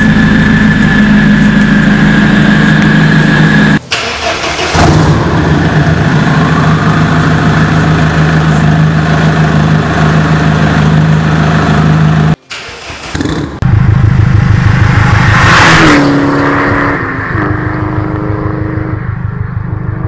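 Opel Astra G 2.0 DTI four-cylinder turbodiesel idling through a straight-pipe exhaust, with a steady high whistle over the first seconds. The whistle comes from an exhaust leak at the missing joint between the rear section and the intermediate pipe, where the metal vibrates at idle after start-up. Near the end the engine revs briefly.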